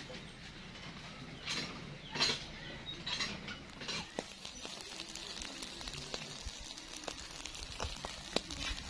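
Charcoal fire crackling and sizzling under a whole fish on a grill: thin scattered clicks over a steady hiss, with a few short noisy bursts in the first four seconds.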